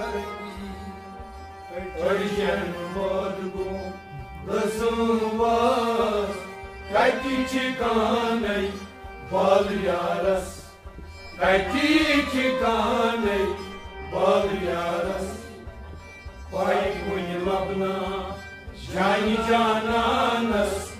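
Sufi devotional song (kalam): a male voice singing in short phrases, a new phrase every two to three seconds, over steady harmonium tones and plucked string instruments.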